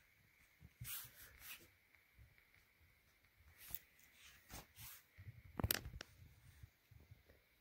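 Pen writing on a notebook page: faint, scratchy strokes in short spurts, with one sharp click about five and a half seconds in.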